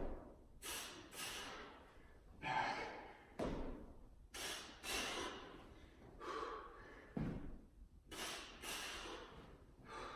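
A man breathing hard under exertion: short, forceful exhalations about once a second, a few of them with a soft thud.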